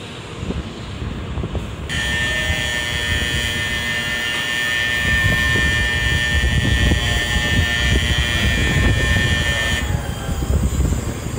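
Shinkansen platform departure bell: an electronic bell ringing steadily for about eight seconds, starting about two seconds in and cutting off shortly before the end, the signal that the train is about to leave. A low station and train rumble runs underneath.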